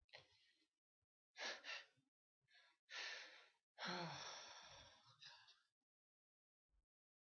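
A person sneezing: a run of breathy gasps and sneezes, the longest about four seconds in, trailing off with a falling voiced exhale.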